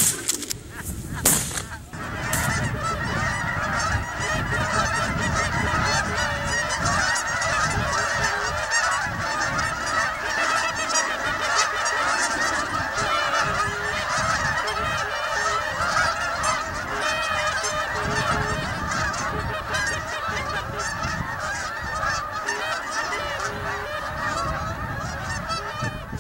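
A large flock of Canada geese honking, many birds calling at once in a continuous chorus. Two sharp bangs come in the first couple of seconds.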